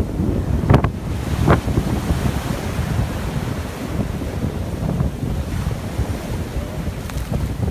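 Wind buffeting the microphone over choppy water, with waves and sloshing, and two short sharp splashes or knocks within the first second and a half.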